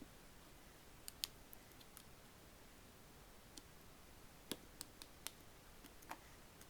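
Faint, scattered clicks, about eight over several seconds: the clips of a OnePlus One's snap-on back cover letting go as it is pried loose around its edge.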